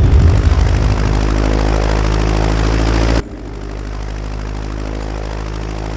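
Cartoon sound effect of a bee swarm buzzing: a steady low drone that drops to a quieter level about three seconds in.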